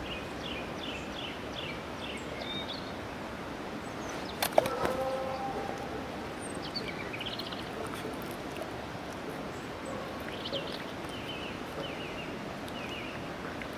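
Small songbird singing in runs of short, quickly repeated chirps, three times over, against steady outdoor background noise. About four and a half seconds in, a single sharp knock is the loudest sound, followed by a brief low tone.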